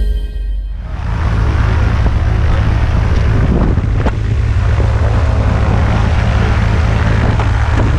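Propeller engine of a high-wing light aircraft running steadily close by, a loud low rumble. The tail of some music fades out in the first second.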